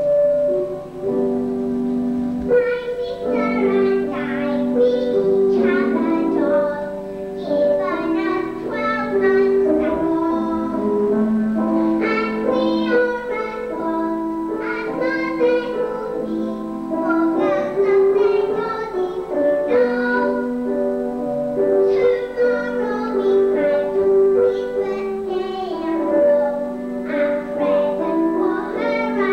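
A young girl singing a song with piano accompaniment, her sung lines wavering over the held notes of the piano.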